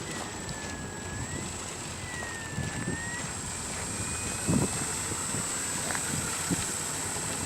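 Electric motor and propeller of a radio-controlled model airplane whining in flight, the pitch dipping and rising as the throttle changes, over gusts of wind buffeting the microphone.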